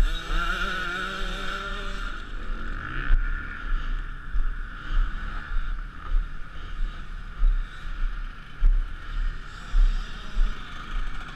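Motocross bike engines running, one engine note rising and falling in the first couple of seconds, with gusts of wind buffeting the microphone.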